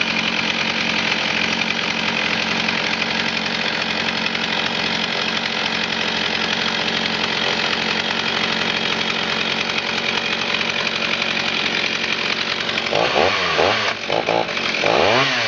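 Stihl 028 Wood Boss 47 cc two-stroke chainsaw running steadily at high speed for most of the time. Near the end it is revved up and down several times.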